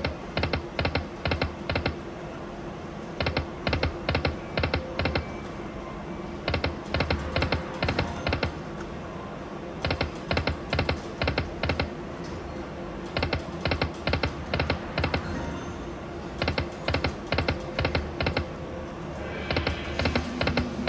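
Video slot machine being played spin after spin: a quick run of five or six clicks about every three seconds, over a steady background of machine tones.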